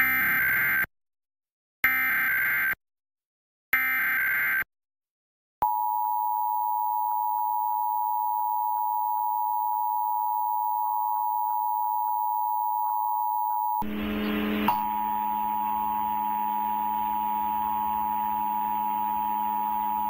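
Emergency Alert System broadcast signalling: three short bursts of screeching SAME data tones (the EAS header), about two seconds apart, then the steady two-tone EAS attention signal (853 and 960 Hz together), held for about fifteen seconds. Roughly two-thirds of the way through, other program sound comes up faintly beneath the tone.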